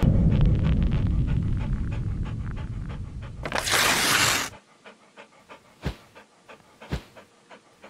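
A dog panting rapidly, then a brief whoosh about three and a half seconds in, followed by faint regular clicks with a few louder ones about a second apart.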